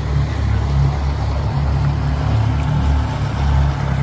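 Twin Yamaha 200 hp outboard motors running as the boat moves through the water: a steady low rumble that swells and eases slightly, under an even rush of water and wind noise.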